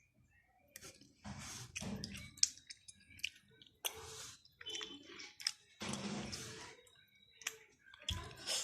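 A person chewing a sour candy close to the microphone: wet mouth clicks and smacks, with four short breathy bursts.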